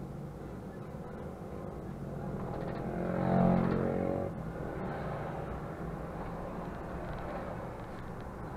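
Mercedes-Benz Conecto city bus's diesel engine running as the bus pulls away, heard from the driver's cab. The engine note swells to its loudest about three and a half seconds in, then drops sharply just after four seconds and settles back to a steady drone.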